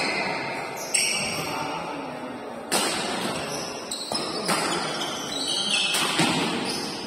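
Badminton rackets striking a shuttlecock in a fast rally: four sharp smacks, a little under two seconds apart, each echoing through a large hall. Shoes squeak briefly on the court floor between the shots.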